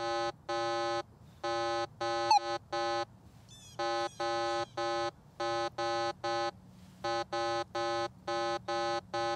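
Minelab Manticore metal detector sounding a run of short target beeps, all at the same pitch, about two a second, in pairs and threes. It is responding each time a target is wiggled slowly over the coil, with the stabilizer set to 1.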